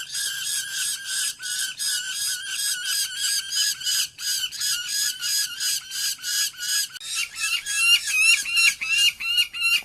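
A bird calling in a fast, even series of pitched notes, about four a second, the notes turning higher and sweeping upward about seven seconds in.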